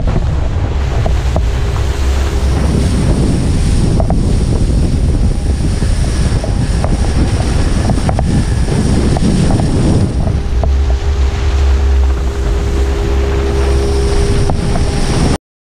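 Wind buffeting a board-mounted action camera's microphone, over the rush of water under a wakeboard towed at speed. A faint steady hum joins about ten seconds in, and everything cuts off suddenly near the end.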